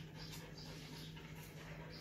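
A dog panting in short, faint breaths, a few a second, over a steady low hum.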